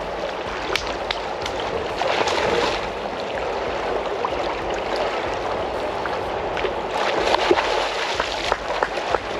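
River water rushing and gurgling steadily, with scattered small splashes and clicks throughout.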